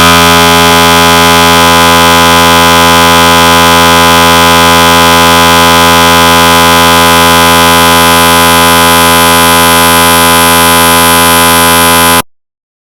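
Recreated GE 750w 3T MRI scanner sound, imitating a scan sequence: a loud, steady buzz of many tones held unchanged, cutting off suddenly near the end.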